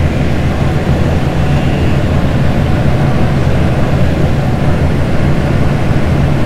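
Combine harvester running steadily: a constant low engine drone with machinery noise over it.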